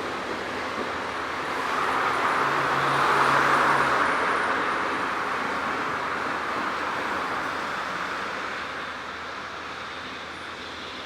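A vehicle passing by: a steady rushing noise that swells about two to four seconds in, then slowly fades away.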